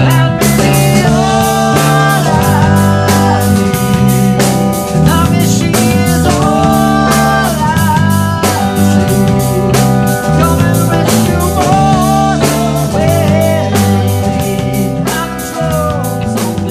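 Live rock band playing an instrumental passage: an electric guitar lead line with bent, wavering notes over bass and a steady drum-kit beat.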